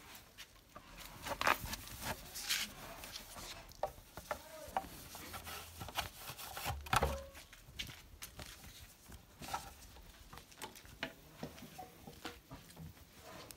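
A cloth being rubbed and wiped over a motorcycle's chrome and painted parts by hand: irregular rustles, scrapes and light knocks, with a louder bump about seven seconds in.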